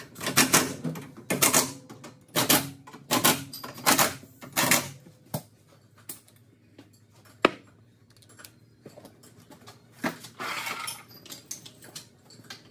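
A wrench working bolts on the tractor's loader mounting frame: about six short rattling bursts in the first five seconds, a single sharp metal click about seven seconds in, and a longer rattle around ten seconds in.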